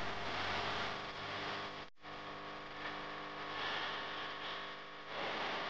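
Dust-storm wind blowing as a steady hiss, with a few faint steady tones underneath. The sound cuts out completely for a moment about two seconds in.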